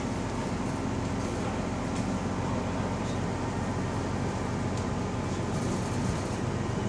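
Bus driving along, heard from inside: steady engine and drivetrain running with a faint steady whine that the uploader calls a subtle weird differential noise.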